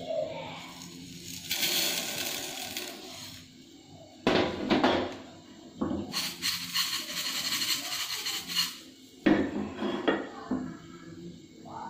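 Silica gel beads rattling and sliding in a metal frying pan as the pan is shaken over a gas burner, so that the heat spreads evenly while the beads dry out. There are a couple of sharp knocks, about four seconds in and again near nine seconds.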